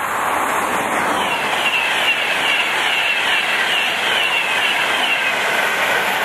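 A Virgin Class 390 Pendolino electric train passes at speed: a loud rush of wheels and air on the rails, with a run of short, falling high whines as the carriages go by.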